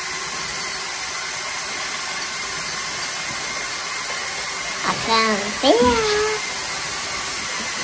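Lego Technic tank's twelve Powered Up L motors and geartrains whirring steadily as it drives on its tracks under load, towing a child along the floor. About five seconds in, a child's voice cries out briefly with a rising and falling pitch.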